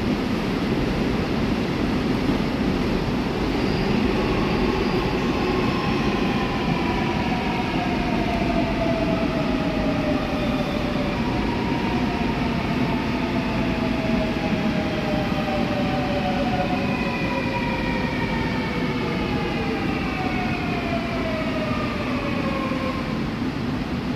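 Seoul Subway Line 4 train pulling into the platform and braking to a stop. Under a steady rumble of wheels on rail, its traction motors give a whine of several tones that falls slowly in pitch as the train slows.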